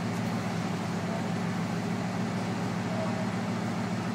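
Bugatti Veyron's quad-turbo W16 engine idling with a steady low hum.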